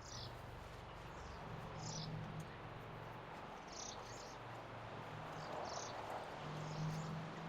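Short, high-pitched animal chirps, one every second or two, over a faint low hum that comes and goes.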